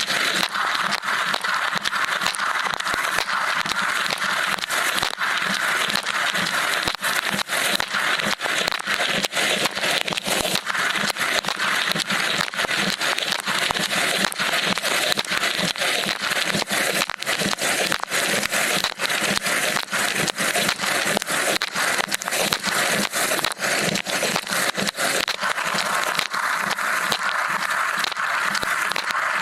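Water from an LG dishwasher's spray arms pelting the camera and dishes, heard from inside the running machine: a dense, continuous crackling spatter of countless small hits.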